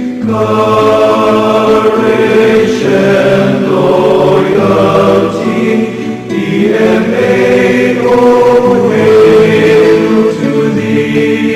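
Choir singing a slow hymn in long, held chords.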